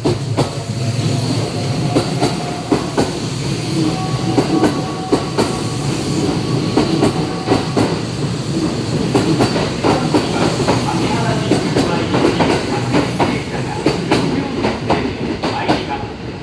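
Electric trains moving through the station at low speed, wheels clattering in a rapid, uneven run of clicks over rail joints and points.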